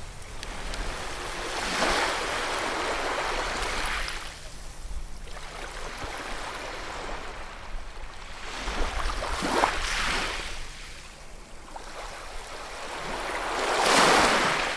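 Ocean waves breaking and washing up a shore in slow surges, three times, the last and loudest near the end.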